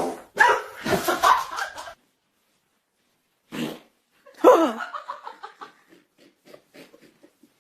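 A fart and people laughing, in separate short bursts with silent gaps between them. The last burst trails off in a run of short repeated pulses.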